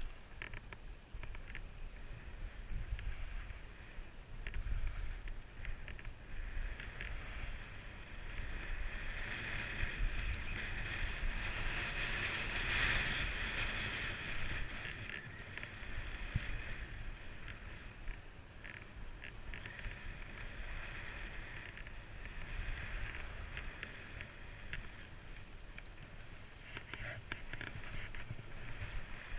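Skis hissing through powder snow, with wind rumbling on the helmet-mounted microphone; the hiss swells louder about halfway through.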